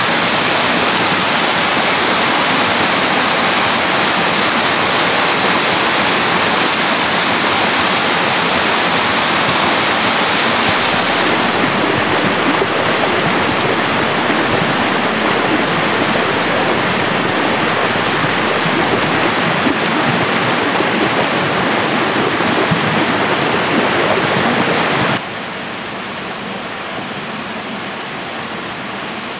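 Stream water rushing steadily. The rush changes abruptly twice: about a third of the way in it loses some of its high hiss, and near the end it drops noticeably quieter. A few faint, short, high chirps come through twice in the middle.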